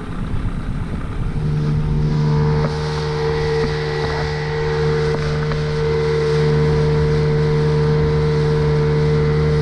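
Sea-Pro 18 outboard motor picking up speed about a second and a half in, then running steadily as the boat goes under way, with wind on the microphone.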